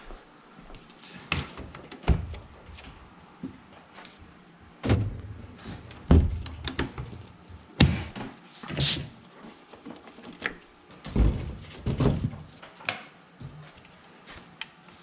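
Irregular knocks, clunks and thuds, about a dozen spread unevenly, as metal parts and tools are handled and set down in a workshop.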